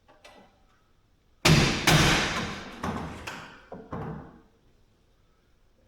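A run of knocks and rattles from a steel garage door track and the vise grips clamped in it. The two loudest come about a second and a half and two seconds in, then a few weaker ones fade out by about four seconds.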